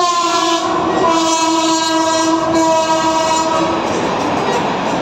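Electric locomotive's air horn sounding one long note, sagging slightly in pitch and dying away about three and a half seconds in, over the rush of an express train running through at speed; after the horn, the rushing noise and wheel clatter of the coaches go on.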